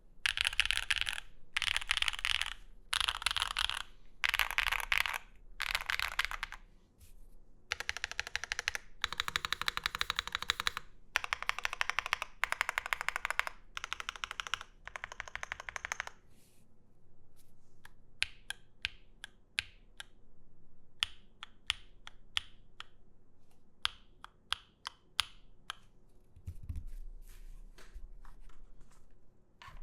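Custom gasket-mount mechanical keyboard with a polycarbonate plate, case and plate foam and stock Sillyworks (Gateron) Type R switches being typed on. It starts with five short bursts of very fast keystrokes, then a longer run of fast typing, then slower, separate key presses in the second half.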